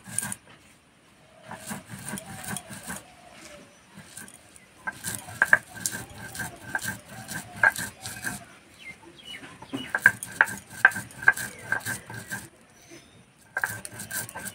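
Stone roller of a flat stone grinding slab (shil-nora) knocking and scraping on the stone as dry-roasted whole spices and dried red chillies are crushed to a coarse, grainy powder. It comes in bursts of quick strokes, about three or four a second, with short pauses between them.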